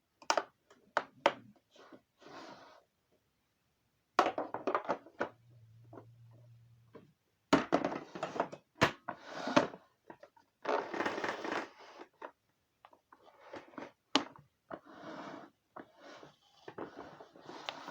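Irregular clicks, knocks and crinkling from the plastic parts and filters of a Samsung Air Track vacuum cleaner being handled; the vacuum's motor is not running.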